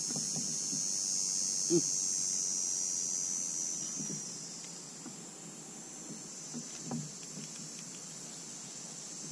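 Steady high-pitched buzzing of an insect chorus in the trees around the pond, easing slightly after about four seconds. A few soft knocks come through it, one near two seconds in and a sharper one near seven seconds.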